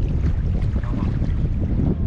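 Wind buffeting the microphone: a steady, loud low rumble with a faint hiss above it.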